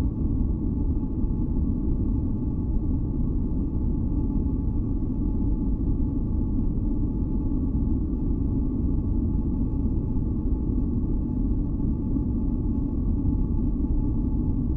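Continuous masking noise track: a deep, even hiss weighted toward the low end, with a few faint steady high tones held over it and no change throughout.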